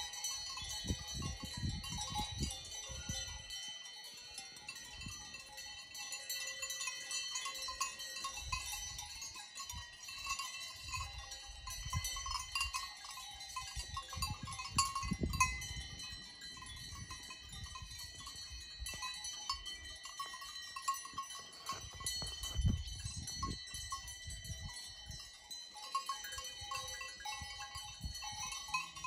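Many bells on grazing alpine livestock ringing and clanking continually, with low rumbles coming and going underneath.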